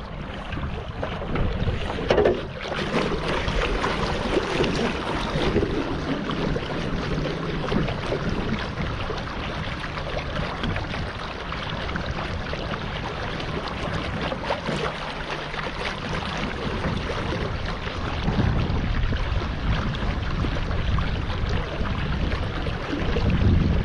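Small boat under way on a river: steady wind noise on the microphone over water rushing and splashing along the hull.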